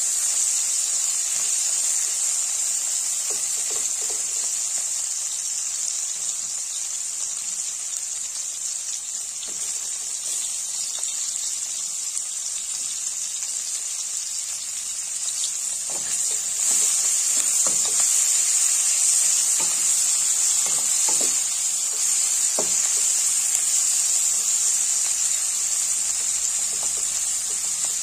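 Dried salt fish frying in oil in a steel wok: a steady, high sizzle that gets louder a little past the middle, with a few light knocks of a wooden spatula against the pan.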